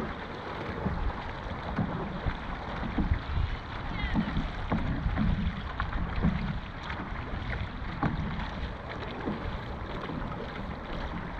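Wind rumbling on the microphone over the wash of water around a dragon boat, with no clear paddle rhythm.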